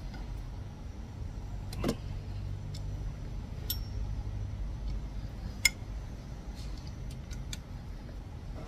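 A few sharp metal clicks and ticks from a long steel bar and socket working the cylinder head bolts of a Hyundai Matrix 1.6 engine, the loudest about two thirds of the way in. Under them is a steady low hum.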